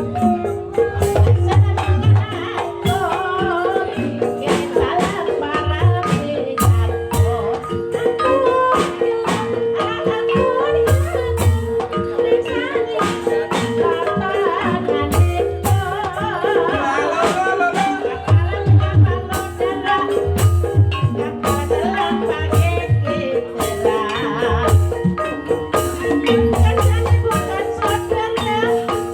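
Banyumasan gamelan music accompanying ebeg. Metallophones play a repeating pattern, deep drum strokes recur, and a wavering melody runs above them.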